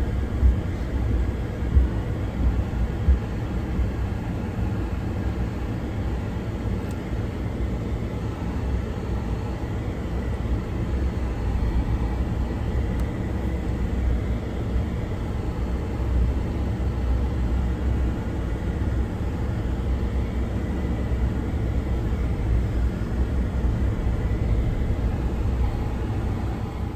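Vehicle cabin noise while driving slowly over a gravel track: a steady low rumble of engine and tyres on gravel, with a few short knocks from bumps in the first three seconds.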